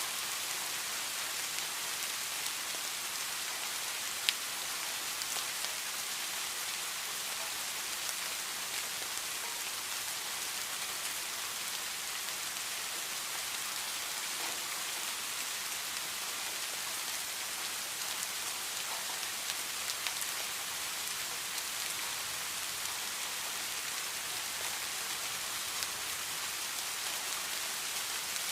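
Steady rain falling, an even hiss with scattered individual drops ticking, one sharper drop about four seconds in.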